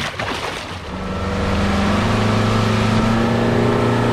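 A splash of water as a caught catfish is dropped back over the side, then from about a second in a boat's motor starts up and runs with a steady pitched hum that builds over the next second and holds.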